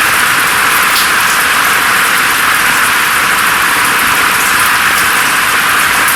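Steady rain: a dense, even hiss of falling drops, with a few faint separate drop ticks. The low end is cut off sharply, so the hiss sits high, as in sound filtered for tinnitus masking.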